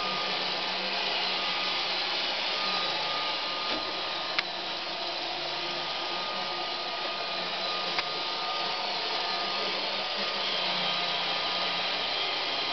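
Roomba robot vacuum cleaner running steadily, a whirring hiss with a thin high whine, with two sharp clicks about four and eight seconds in.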